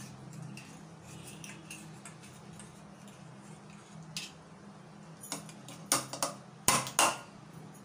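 A knife scraping and ticking around the inside of a fluted metal jelly mould, then the upturned mould knocking against a plate several times to release the jelly, the loudest knocks about seven seconds in. A steady low hum runs underneath.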